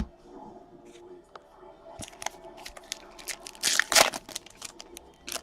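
Foil trading-card pack wrapper crinkling and tearing as a pack is opened, in a run of crackly rustles that are loudest about four seconds in. It is preceded by a single sharp knock at the very start.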